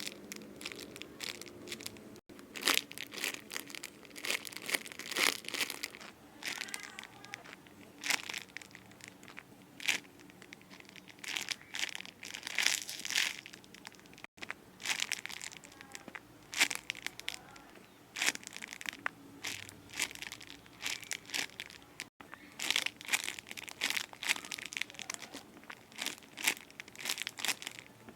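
Squishy foam toys being handled and squeezed, with crinkling, rustling handling noise in irregular bursts every second or so.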